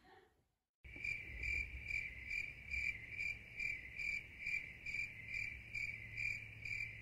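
A cricket chirping in a steady rhythm, about two chirps a second, starting about a second in after a short silence.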